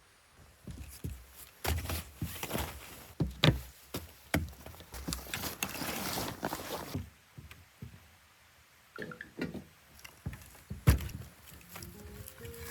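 Rustling and irregular knocks and clatter of camping gear being handled, with a longer rustling stretch in the first half. Background music begins near the end.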